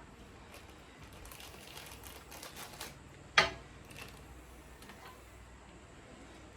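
Small parts being handled by hand, with light rustling for about a second and a half, then a single sharp clack about three and a half seconds in.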